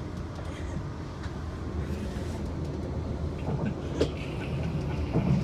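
Inside a moving electric passenger train: the steady low rumble of wheels on rails and the running gear at speed. A sharp click comes about four seconds in, and a brief louder thump near the end.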